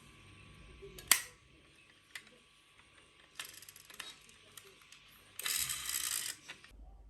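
Small toy cars being handled: a sharp click about a second in, a few lighter knocks, then a short rattling run of plastic or die-cast wheels on a slope near the end.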